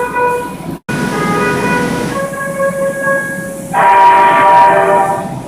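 Seoul Subway Line 7 train's horn sounding, several steady tones at once over a low running rumble. A brief break comes just under a second in; after it the horn's chord changes twice, the last chord the loudest.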